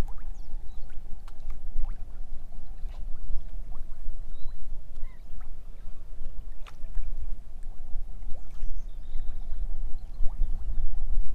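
Wind buffeting the microphone in a low, uneven rumble, over small choppy waves lapping against a floating jetty, with a few faint clicks and ticks scattered through.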